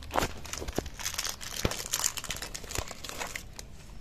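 Plastic wrappers of small chocolate-biscuit packets crinkling and tearing as they are ripped open by hand, with many short, irregular crackles and snaps.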